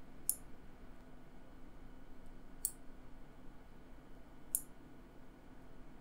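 Opened MX-style clicky keyboard switch with a blue stem, worked with tweezers: the click jacket's prongs snap as the stem is pressed. It gives three sharp, high clicks, roughly two seconds apart.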